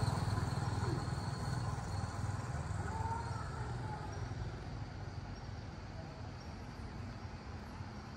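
A motor vehicle's engine rumbling as it moves away, fading steadily.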